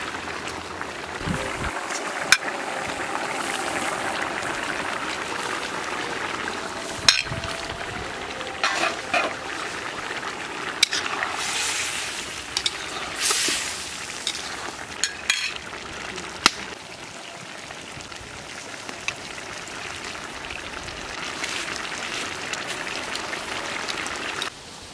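Fish and potato curry sizzling in a pan just after the fish go in, stirred, with a few sharp knocks of the utensil against the pan.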